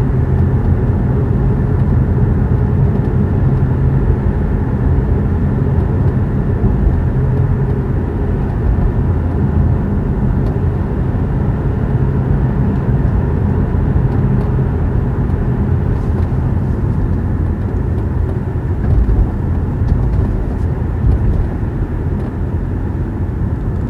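Inside the cabin of a battery electric car driving on a street: a steady low rumble of road noise.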